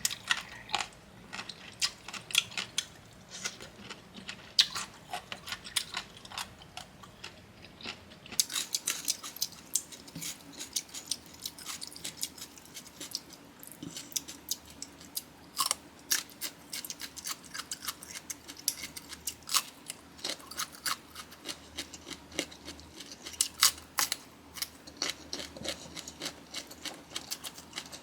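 Close-miked chewing of bamboo shoot and papaya salad: a steady run of crisp, irregular crunches and wet mouth clicks.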